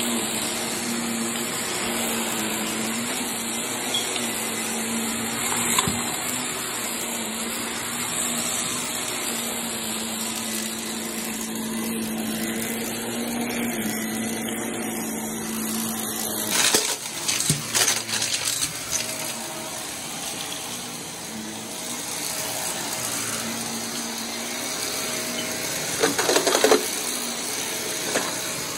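Small blue corded upright vacuum cleaner running steadily over carpet with a steady motor hum. Brief bursts of clattering rattles come about two-thirds of the way through and again near the end.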